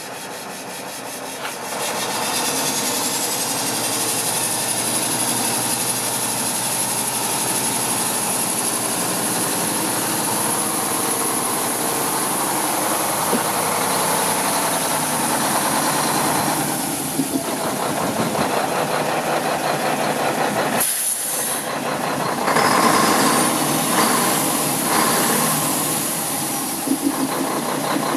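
Diesel engine of a 2005 Mack CX612 day cab tractor running, with a high whine that climbs over a couple of seconds and then holds steady.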